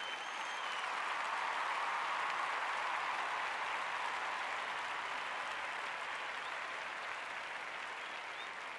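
Crowd applause and cheering laid over the replay: an even wash of clapping that fades in over the first second and then holds steady.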